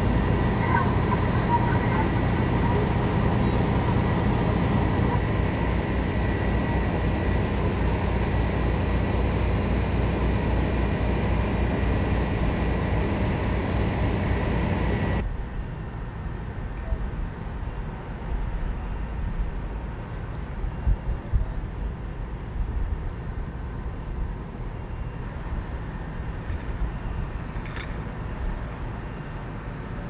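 A fire truck's engine running steadily and loudly with a high, steady whine over it. About halfway through, the sound cuts to a much quieter low outdoor rumble with a few bumps.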